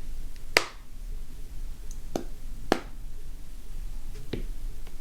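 Four sharp clicks, a few at a time, as the replacement screen is pressed down and snapped into the iPhone X's frame.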